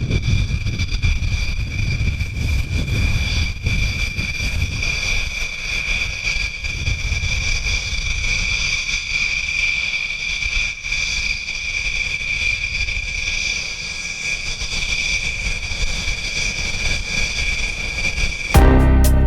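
Jet engine running: a steady high-pitched whine over a low rumble. Music starts abruptly just before the end.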